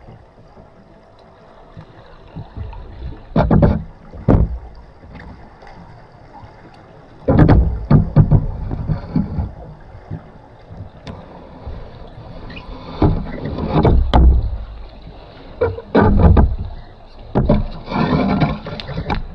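Water sloshing and bubbling on the microphone in irregular bursts of about a second each, over a quiet hiss.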